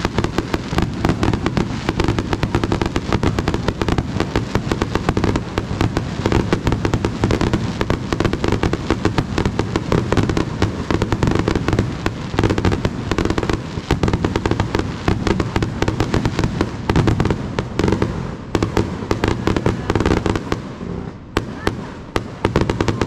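Fireworks grand finale: a dense, rapid barrage of bangs and crackling reports that thins out over the last couple of seconds.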